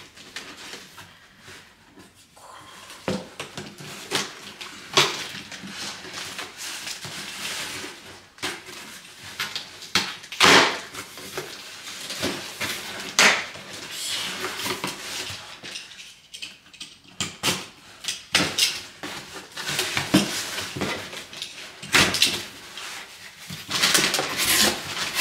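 Box cutter slicing the packing tape on a cardboard shipping box, then the cardboard flaps being pulled open and the contents handled: irregular scrapes, crackles and rustles.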